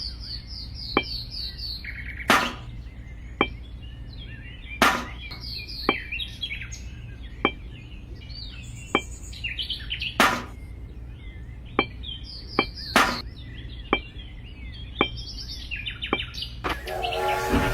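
Small birds chirping in short repeated phrases, with irregular sharp knocks: about four loud ones and a dozen lighter ticks. A low steady hum lies under it.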